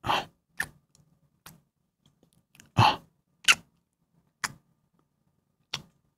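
A man kissing: seven short, wet kissing smacks, spaced roughly a second apart, a couple of them a little longer.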